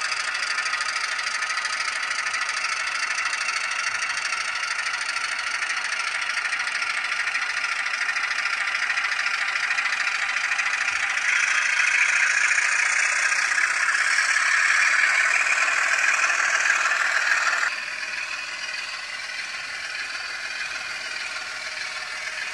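Dapol N gauge Class 27 model locomotive's DCC sound decoder playing a Class 27 diesel engine sound file through its small onboard speaker, which leaves the sound thin with little bass. It runs steadily, grows louder about halfway through, then drops suddenly about three-quarters of the way in.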